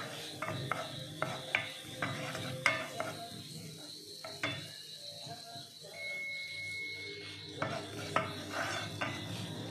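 Wooden spoon stirring chopped garlic in melted butter in a granite-coated nonstick frying pan, scraping and tapping against the pan in irregular strokes. The strokes pause for a few seconds midway, then resume near the end.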